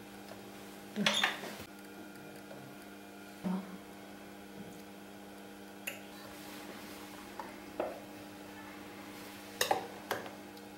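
Scattered light clicks and knocks of hands handling a Janome DC 4030PR sewing machine's plastic body and thread guides while threading the upper thread, over a steady faint hum.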